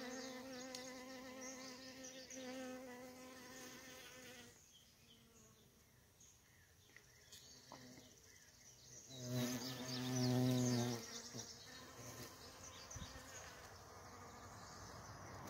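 Bees buzzing in flight at close range, honey bees and a carpenter bee. The buzz fades for a few seconds, then a louder, deeper buzz swells about nine seconds in and lasts about two seconds as a bee passes close.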